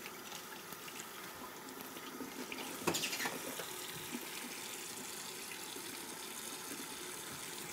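Kitchen tap running into a sink, a steady rush of water, with a couple of light knocks about three seconds in.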